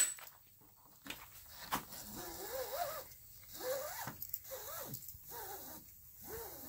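Flexible toothed vinyl track being pressed by hand into place along a porch post, giving a zipper-like rasp with a string of short rising-and-falling squeaks. There is a sharp click at the start.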